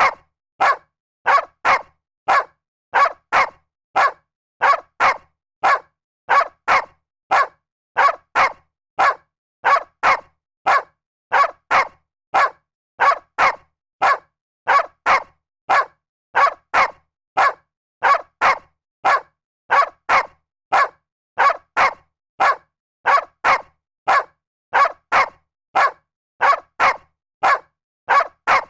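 A dog barking in a steady, evenly spaced series of short barks, about two a second.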